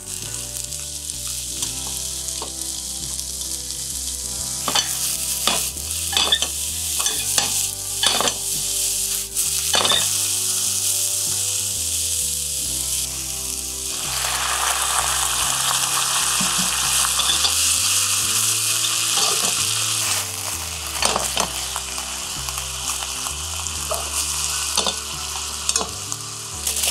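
Sliced eggplant and yellow bell pepper sizzling in hot oil in a frying pan as they are stir-fried, with scattered clicks of the utensil against the pan. About halfway through, ponzu sauce goes into the pan and the sizzle suddenly becomes fuller and louder.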